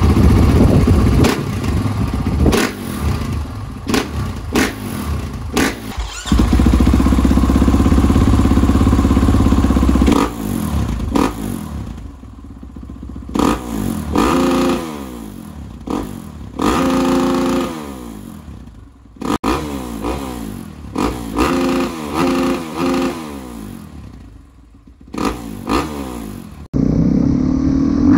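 A 2020 Husqvarna FE 450's single-cylinder four-stroke engine, through an Akrapovic exhaust, revved repeatedly. The revs climb and drop back several times, with one long high-rev hold a few seconds in and quieter idling between the blips. A sharp break in the sound comes near the end.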